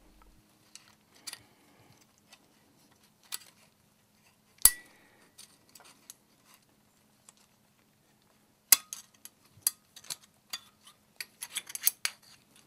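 Light metallic clicks and clinks of piston ring compressor clamp bands being loosened and slipped off the pistons beneath the cylinder barrels. One sharp clink with a brief ring near the middle, then a quick run of clicks near the end.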